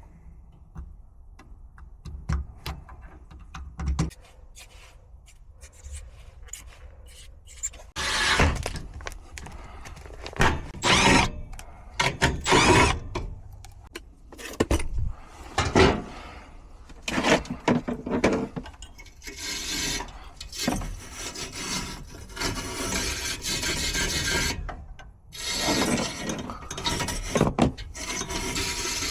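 Repeated rubbing or scraping strokes in irregular bursts, starting about a third of the way in and growing denser, after a few faint clicks.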